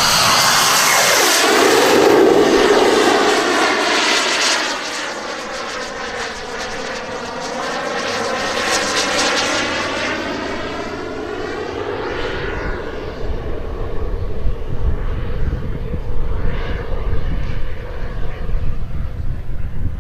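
Model jet's Hybl H16 kerosene turbine passing low and fast: its whine drops sharply in pitch as it goes by, loudest about two seconds in. The turbine rush then fades as the jet climbs away. A gusty low rumble runs through the second half.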